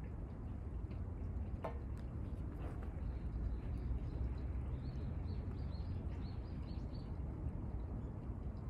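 Outdoor ambience with a steady low rumble, through which a small bird gives a quick run of about ten high chirps in the middle. A single sharp click sounds near the start.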